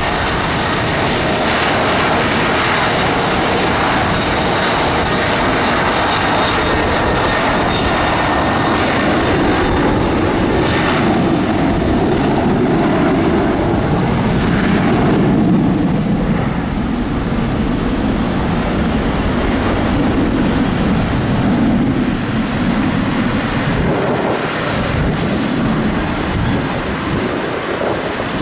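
Boeing 737 jet engines at takeoff thrust during the airliner's takeoff roll: a loud, steady jet roar. Its high hiss fades from about halfway through as the plane accelerates away down the runway, leaving a deeper rumble.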